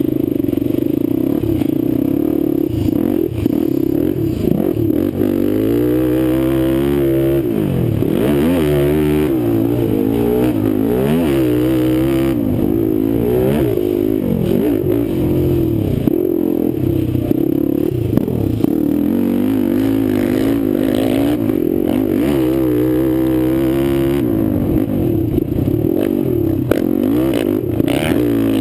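Kawasaki sport quad's engine, heard close up, running steadily for the first few seconds, then revving up and down over and over as the quad is ridden on a dirt track, with the pitch rising and falling in waves.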